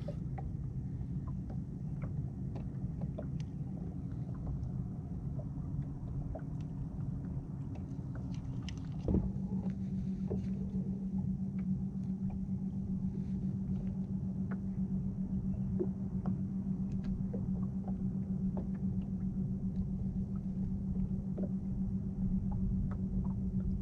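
Steady low rumble of wind and water around the boat. About nine seconds in, a steady low hum from the bass boat's electric trolling motor starts and holds, with scattered light ticks over it.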